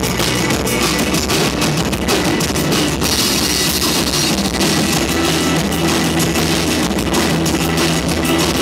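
Live rock band playing loud and steady: a drum kit with cymbals, congas and other drums struck hard under electric guitar.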